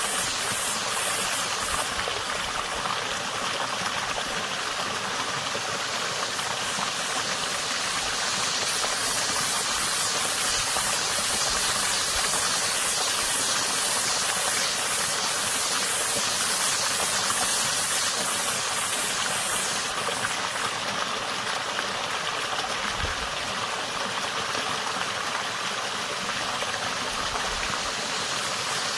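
Water running in a small creek, a steady rush throughout, with a cicada singing a high, pulsing buzz that is strong at the very start and again from about eight seconds in until about twenty seconds.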